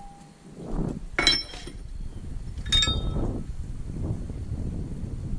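Two sharp clinks of hard objects, about a second and a half apart, each leaving a brief ringing note, over a low rumble of handling noise.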